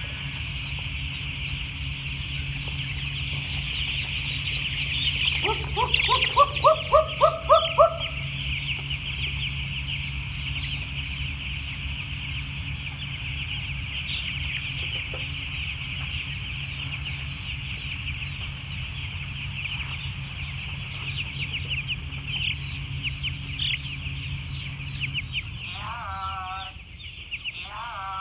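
Dense chorus of peeping from a flock of week-old chicks: many overlapping high cheeps. A steady low hum runs under it and stops about 25 seconds in. About six seconds in, a louder call repeats about six times in quick succession, and a couple of short wavering calls come near the end.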